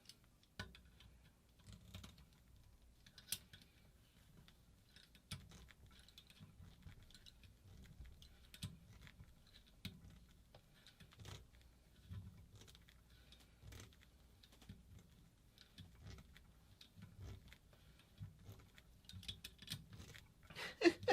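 Faint, irregular small clicks and taps of metal parts being handled and turned, as a stuck, heavily Loctited threaded part of a paintball marker is worked loose by hand.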